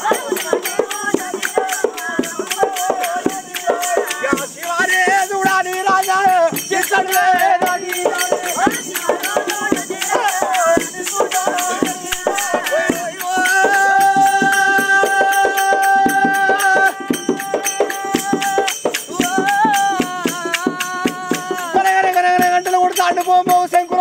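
Male voices singing an oggu katha folk chant, with a long held note in the middle, over fast continuous rattling of jingling hand percussion and drum strokes.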